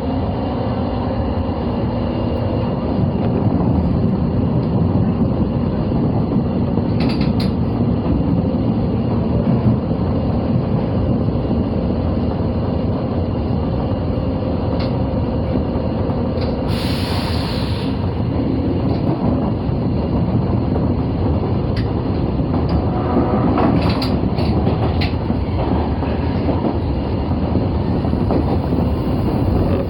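Osaka Metro 22 series subway train running: a steady rumble of wheels on rail, with a few light clicks and a brief hiss about seventeen seconds in.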